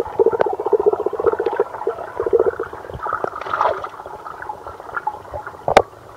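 Water gurgling and churning in a trout tank as the fish take feed, muffled with a dense crackle. A brief rushing splash about three and a half seconds in, and a sharp knock near the end.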